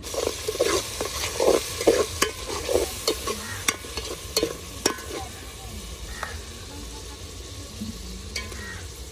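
Food frying with a sizzle in a cooking pot, stirred and scraped with a utensil that knocks sharply against the pot several times in the first five seconds; after that the sizzle goes on more quietly.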